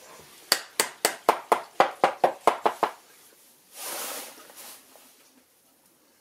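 A wooden mallet knocking on a small wooden box, about a dozen quick, even strikes at roughly five a second, followed by a brief hiss.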